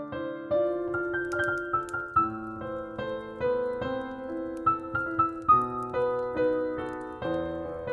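Solo piano playing a slow, gentle film melody, the notes struck one after another and left to ring out, with a few faint fireplace crackles behind it.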